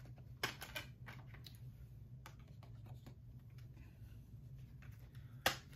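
Clicks and taps of a metal SteelBook case and its Blu-ray discs being handled: a few sharp clicks about half a second in, faint ticks after, and one sharp click near the end, over a low steady hum.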